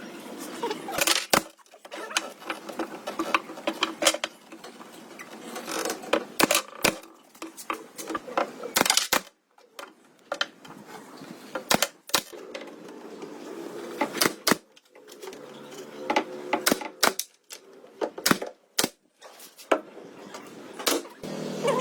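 Irregular sharp taps and knocks of workshop handwork on wood, scattered unevenly with several louder strikes among lighter clicks.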